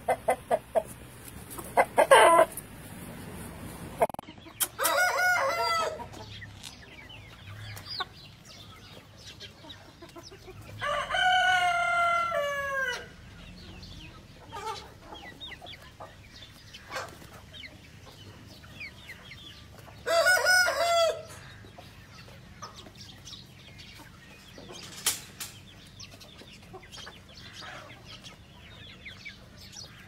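Aseel roosters crowing three times, the middle crow the longest and falling in pitch at its end, with a short squawk near the start and clucking between the crows.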